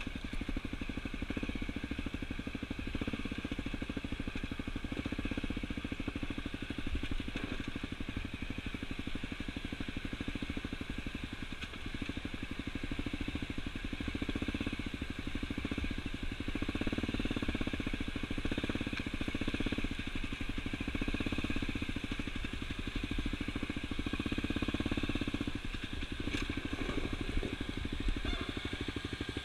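Honda CRF250L dirt bike's single-cylinder four-stroke engine running at low trail speed, its note swelling and easing every few seconds as the throttle is worked.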